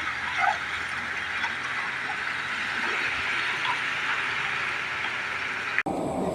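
Steady hiss of rain falling, with a few faint short chirps over it. It cuts off suddenly near the end and gives way to a lower rumble.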